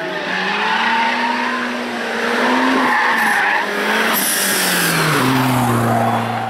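Drift car's engine held at high revs with its tyres squealing as it slides, the engine note dropping about five seconds in as the revs fall.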